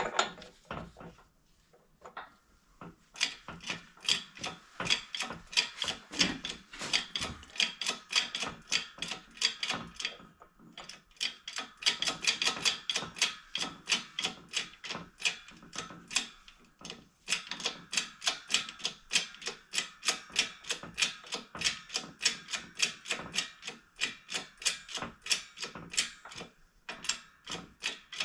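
Ratchet wrench clicking in quick, even strokes, about four clicks a second with a couple of short breaks. It is winding a press that uses sockets as adapters to push the small inner toe link pillow ball out of the rear suspension arm.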